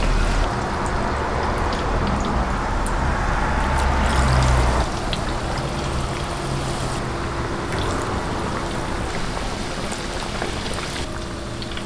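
Batter-coated slices deep-frying in a pot of hot oil: a steady sizzle and bubbling, with a few light ticks.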